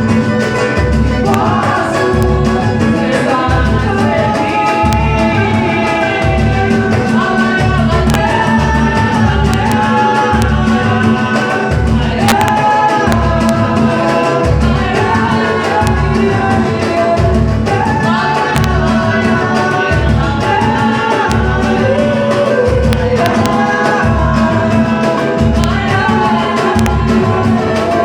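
Samba pagode: voices singing a melody over a steady low drum beat and percussion.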